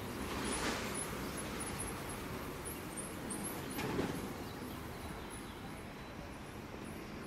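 City street ambience: steady traffic noise, with small birds chirping high and rapidly throughout. A dull knock comes about four seconds in.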